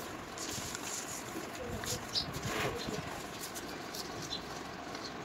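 Small clicks and rubbing of hard plastic parts as a toy horn's trumpet and cap are handled and pulled apart. There is a brief louder scrape about two and a half seconds in, over a low steady background.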